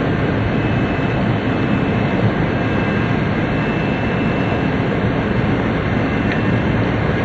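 Steady running noise inside a Tōhoku Shinkansen Hayate carriage at speed: an even, dense rumble of wheels and rushing air, with a faint high whine over it.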